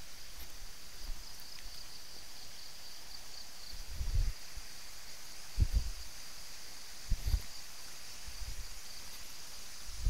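Steady high-pitched insect chirring, with low thuds of footsteps on a dirt and rock path about every second and a half from about four seconds in.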